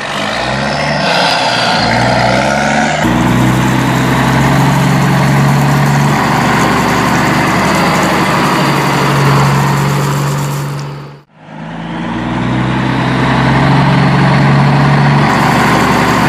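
Car engine sound effect revving up and then running at a steady pitch. It cuts out abruptly about two-thirds of the way through, then revs up again and runs on.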